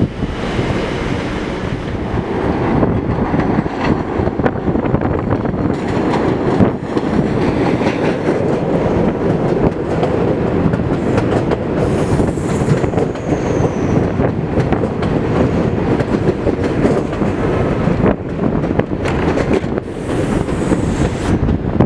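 A New York City subway train of Redbird R33/R36 cars running past along the station platform: a steady loud rumble and clatter of steel wheels on the rails. A faint high wheel squeal comes in briefly about twelve seconds in and again near the end.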